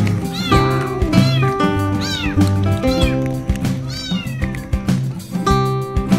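Cats meowing over and over, each meow rising then falling in pitch, over background music with a steady beat. The meows stop about four and a half seconds in, leaving the music.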